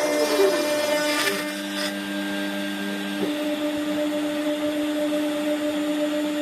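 CNC router machining: a steady spindle whine with stepper-motor tones that change pitch about three seconds in as the axes change moves.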